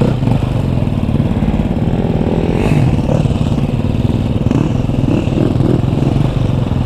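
KTM 250 enduro motorcycle engine running under way off-road, its revs rising and falling a little as the bike is ridden over rough dirt track.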